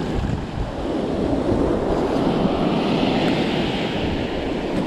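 Sea surf, one wave building and washing in over a few seconds, with wind rumbling on the microphone.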